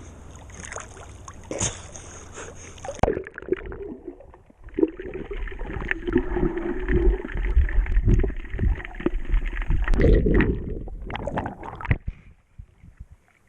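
Seawater splashing and sloshing at the surface, then about three seconds in the sound turns abruptly dull and muffled, as when a waterproof camera goes under, with bubbling and rushing water. It drops almost to quiet shortly before the end.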